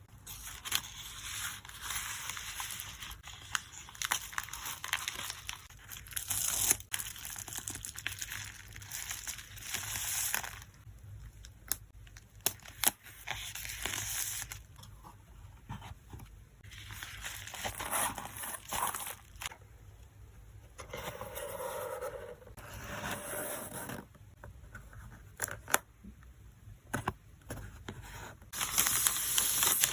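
Photocard packing materials being handled: crinkling and rustling in irregular stretches with short pauses, with many sharp little clicks and taps, and now and then a tearing sound.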